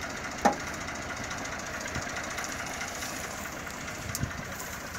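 IMT 540 tractor's diesel engine idling steadily. A sharp knock about half a second in and a few softer thuds come from a hoe digging wet mud away from a trolley's rear tyre.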